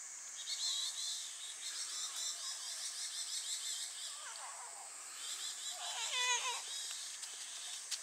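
Cicadas droning steadily at a high pitch in woodland, with a warbling chorus above it. Two short animal calls with a wavering pitch come about four and six seconds in.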